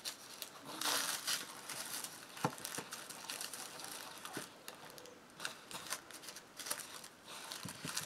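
Tissue paper rustling and crinkling as a folded strip is handled and fitted into a book's hinge, louder about a second in, with a few light taps.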